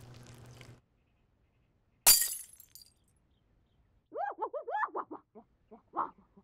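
A single sharp crash of something breaking, with a brief ringing tail, about two seconds in. From about four seconds in, a voice lets out wordless yells that warble up and down in short bursts.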